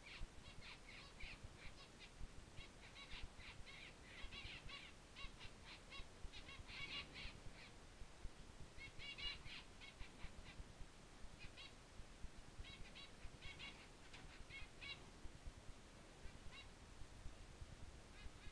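Faint bird chirping: short high notes in irregular bursts, some in quick runs, others single, over a low background hiss.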